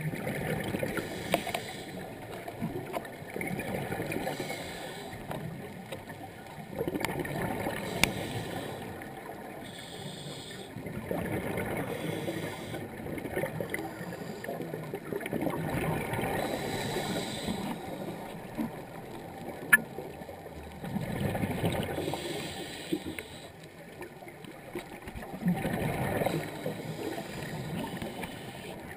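A scuba diver's breathing heard underwater: exhaled bubbles gurgle in slow swells about every four seconds, with a few sharp clicks.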